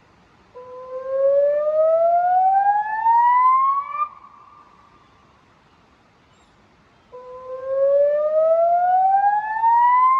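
Electronic river warning siren played through Bosch LBC-3406 horn loudspeakers, sounding a warning activation. Two slow rising sweeps, each climbing steadily in pitch for about three and a half seconds and cutting off sharply at the top, with a fainter echoing tone hanging on between them.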